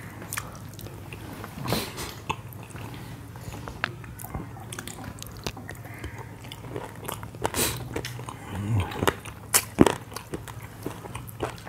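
Close-miked eating by hand: fingers squishing and mixing sticky buckwheat dhido with curry on a brass plate, with chewing and mouth smacks. These come as irregular short clicks and wet smacks, a few louder ones about two seconds in and near the end.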